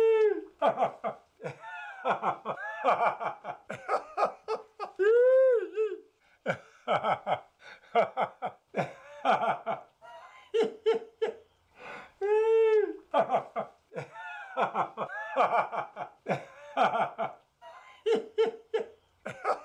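Human laughter in long hearty fits of quick bursts, broken every few seconds by a drawn-out cry that rises and falls in pitch.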